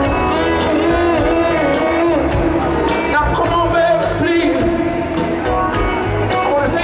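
Live rock band playing, with a male lead vocalist singing over steady drums and the backing band.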